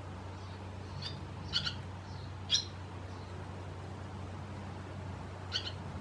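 Barn swallows giving a few short, high chirps, some in quick pairs, about a second and a half and again near the end, over a steady low hum.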